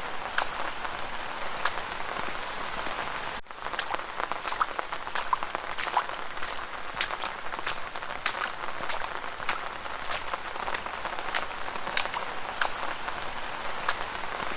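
Steady rain with footsteps splashing through puddles, a sharp splash about every half second. The sound drops out for a moment about three and a half seconds in.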